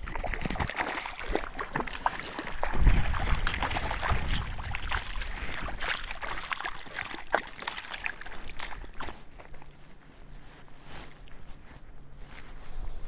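Water splashing and trickling close by as a hooked brook trout is brought in to a float tube, with scattered small clicks and knocks. There is a louder splash about three seconds in, and the sound eases off in the second half.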